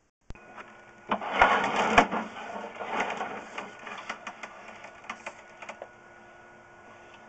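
Sewer inspection camera's push cable being fed down the line, rattling and clicking as it scrapes along. The clatter starts suddenly, is loudest in the first couple of seconds, then thins to scattered clicks over a faint steady electronic hum.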